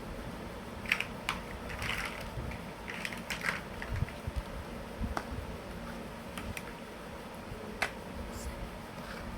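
Plastic toy building blocks being handled and snapped together: scattered sharp clicks and short bursts of light clattering, the sharpest about a second in and near the end.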